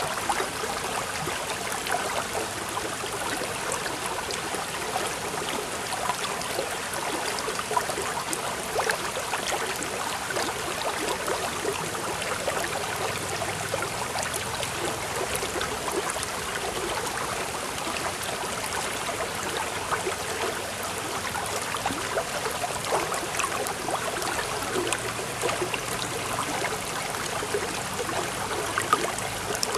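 Steady running water, trickling and splashing evenly throughout.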